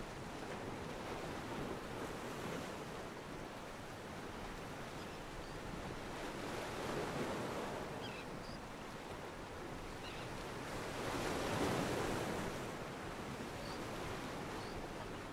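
Stock 'ocean pier' sound effect of sea waves washing against a pier: a steady surf wash that swells twice, about seven seconds in and again about twelve seconds in.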